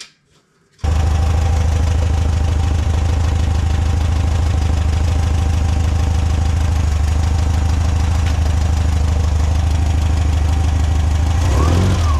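Air-cooled VW flat-four engine idling steadily at operating temperature while its ignition timing is checked with a timing light. The engine sound cuts in abruptly about a second in, and near the end the pitch briefly rises and falls.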